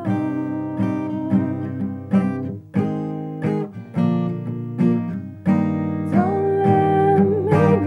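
Steel-string acoustic guitar with a capo, played solo: plucked chords ringing one after another, with a couple of short breaks in the pattern.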